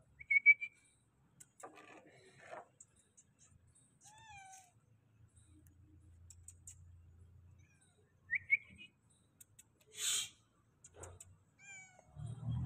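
Cat meowing a few times, each meow falling in pitch, with short high chirps in between, the loudest about half a second in and a little past the middle.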